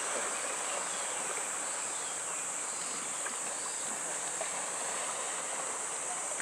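Steady shoreline ambience of water washing and lapping, with small scattered splashes, under a constant high-pitched insect drone.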